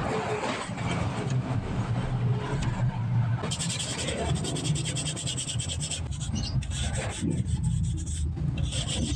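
Hand tool scraping back and forth across the exposed tube ends of a radiator core, cleaning them, in quick strokes that start about three and a half seconds in. A steady low engine hum runs underneath.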